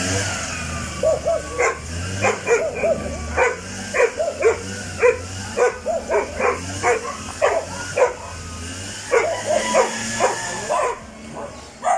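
A dog barking over and over, about two barks a second, over a steady hiss that stops near the end.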